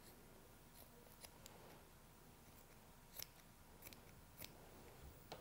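Faint snips of small scissors trimming back the seam allowance at the curve of a shirt collar: about five short, soft clicks spread through otherwise near silence.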